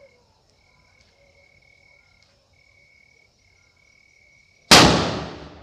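A Top Tiger foil bomb firecracker going off with a single very loud bang near the end, which rings away over about a second. Before it, a faint steady high chirping in the background.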